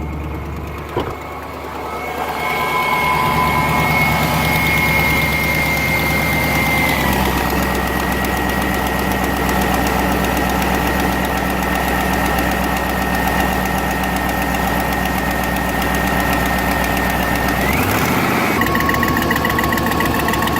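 2001 GMC Sierra 1500 HD's 6.0-litre V8 idling, heard near its exhaust manifold while its manifold leak is being checked. The idle steps down about seven seconds in and changes again briefly near the end.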